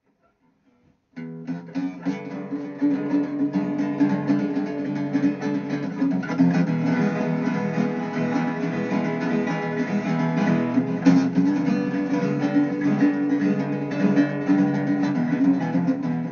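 Intro music: strummed acoustic guitar, starting about a second in.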